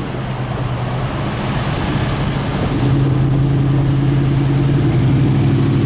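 Car engine hum and road noise heard from inside a moving car. The hum grows stronger about three seconds in.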